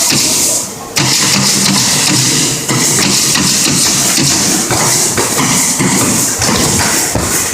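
Pneumatic stapler firing staples into wood again and again, each shot a sharp clack over a steady hiss and a low machine hum.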